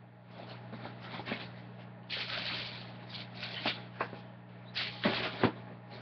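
Rustling and handling noises of sneakers being picked up and moved, ending in two sharp knocks about a second before the end, as shoes are set down.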